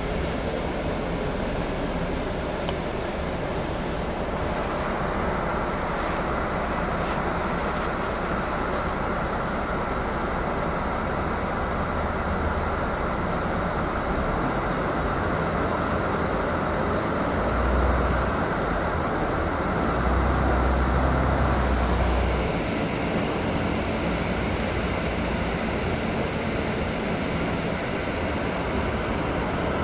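City bus on the move: steady engine and road noise. The low engine rumble swells twice, a little past the middle, and a few faint clicks come in the first nine seconds.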